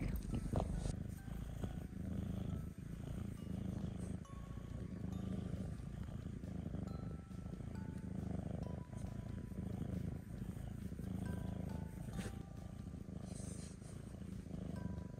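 A tuxedo cat purring close up, a low rumble that swells and fades with each breath.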